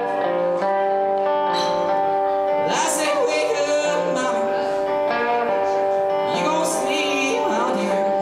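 Electric cigar box guitar playing a blues song live, with sustained, repeating notes. A man sings over it in two phrases, around three seconds in and again near the end.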